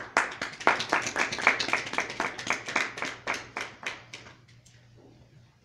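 Small audience applauding with hand claps, thinning out and dying away about four and a half seconds in.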